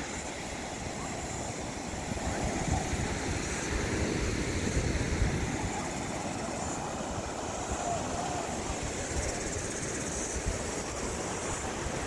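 Surf washing onto a sandy beach: a steady rush of breaking waves, with wind rumbling on the microphone.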